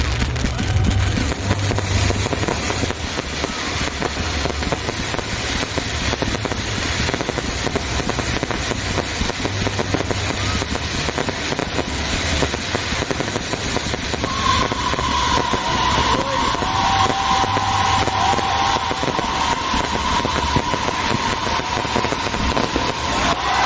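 Fireworks display going off in a dense, continuous crackle with low booms underneath. Past the middle, a steady high whistle-like tone joins in and holds to the end.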